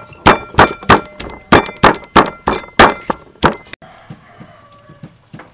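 A knife chopping limes on a wooden cutting board: a quick, even run of sharp chops, about four a second, that stops abruptly a little under four seconds in. After that come a few faint clicks as a lime half is squeezed in a plastic hand citrus press.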